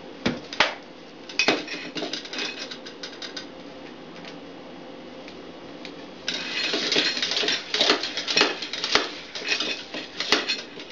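Bicycle pump inflating a freshly mounted tubular tire to a low pressure. A few sharp clicks and knocks come first as the pump is fitted to the valve, then from about halfway in there is a run of hissing strokes, about two a second.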